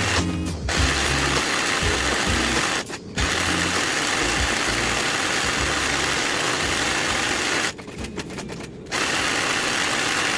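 Manual embroidery sewing machine running steadily as it stitches, stopping briefly about three seconds in and again for about a second near the eight-second mark.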